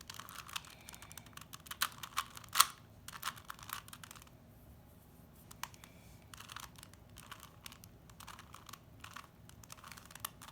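3x3 Rubik's Cube being turned by hand: quick plastic clicks and clacks of the layers rotating, one sharper clack about two and a half seconds in and a brief lull a little later.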